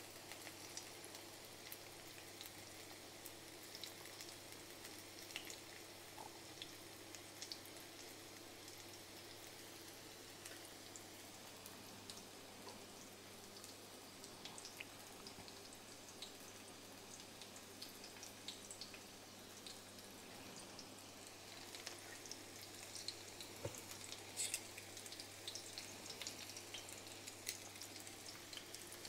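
Crumbed garfish fillets shallow-frying in olive oil in a stainless steel frying pan: a faint sizzle with scattered small crackles and pops, busier near the end.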